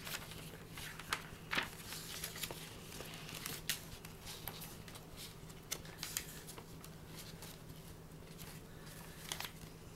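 Paper pages of a handmade junk journal rustling and flicking as they are leafed through by hand, with scattered soft crackles and ticks, over a steady low hum.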